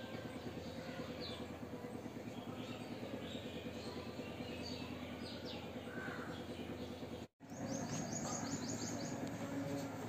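Small bird giving faint, high chirps, then a quick run of about eight rapid chirps about a second after a brief cut, over a steady low hum.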